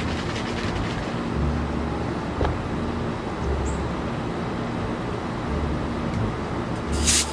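Steady low background rumble with a faint hum, a single light click about two and a half seconds in, and a short hiss near the end.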